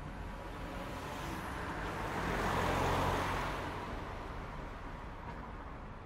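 Busy city street traffic: steady road noise with one vehicle passing close by, swelling to its loudest about halfway through and then fading away.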